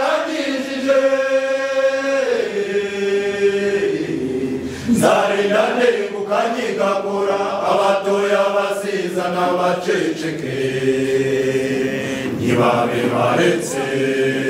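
Mixed choir of men and women singing together in long held chords that step to new notes every few seconds.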